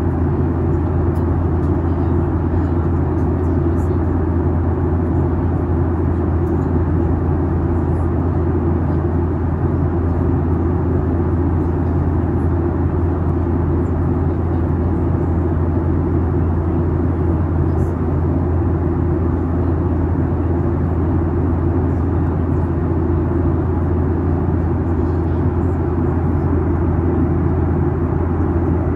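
Steady cabin noise inside a Boeing 737-8: the low drone of its CFM LEAP-1B engines under a constant rush of airflow, with no change in pitch or level.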